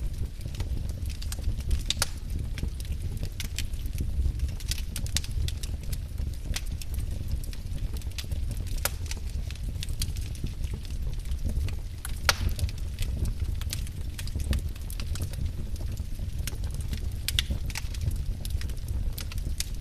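Wood fire burning, with a steady low rumble of flames and frequent irregular crackles and pops from the logs.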